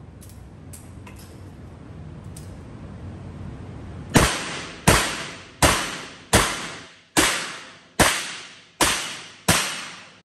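Eight revolver shots fired at a steady pace, about one every three-quarters of a second, starting about four seconds in; each shot echoes and dies away in the indoor range.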